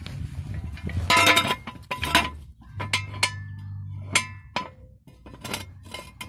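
Steel ratcheting jack stand clinking as its saddle post is pulled up and its locking handle is set: a series of sharp metallic clinks, several ringing briefly, the loudest cluster about a second in.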